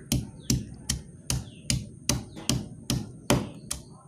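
Pestle pounding ginger and garlic cloves in a stone mortar: a steady run of knocks, about two and a half strikes a second, crushing them to a coarse paste.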